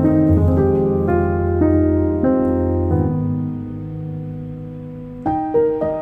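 Background piano music: a run of notes and chords, one chord held and fading away, then new notes starting about five seconds in.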